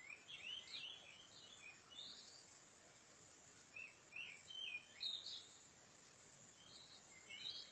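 Faint bird chirps: short clusters of quick curved notes, coming several times, over a low steady outdoor hiss.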